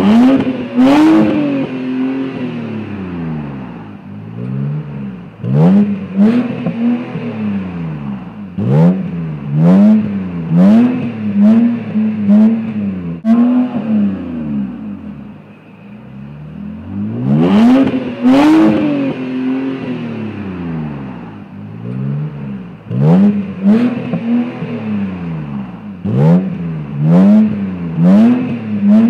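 2008 BMW E90's N52 inline-six free-revved through its custom quad-tip exhaust with X-pipe, mid pipes and a Magnaflow muffler. It gives a run of quick throttle blips, each rising and falling in pitch, with two longer, higher revs, one at the start and one about two-thirds through.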